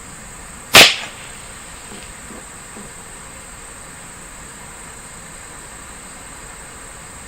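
A single shot from a Ruger 10/22 semi-automatic rifle firing CCI Standard Velocity .22 LR: one sharp report a little under a second in, with a short echo tail. A steady high insect hiss runs underneath.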